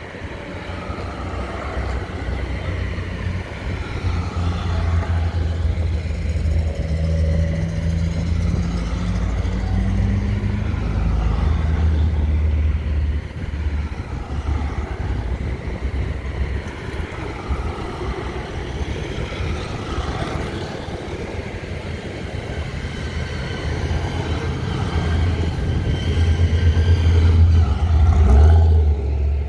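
Classic cars driving past one after another, a steady low engine and exhaust note that swells and fades with each vehicle, loudest near the end.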